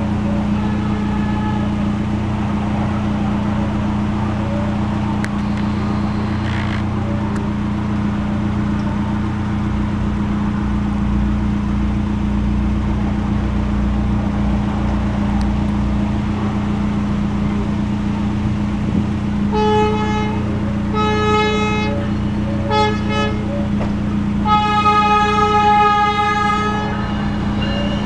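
Horn of an NJ Transit River Line Stadler GTW diesel railcar sounding the grade-crossing signal: two long blasts, a short one and a final long one of about two seconds, starting about two-thirds of the way in. Under it runs a steady low hum, heard from inside a car waiting at the crossing.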